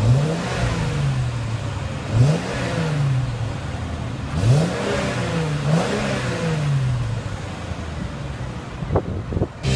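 Exhaust of a 2014 Mercedes-Benz E350's V6 heard from behind the car. The engine is blipped four times, each rev rising and falling back, then settles into a steady idle.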